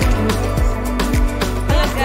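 Background music with a steady beat: deep drum hits about twice a second under held notes.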